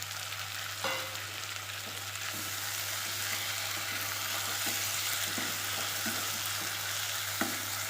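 Onion, green chilli and tomato masala sizzling steadily in hot oil in a pan while being stirred, with a couple of sharp knocks of the spoon against the pan, about a second in and near the end.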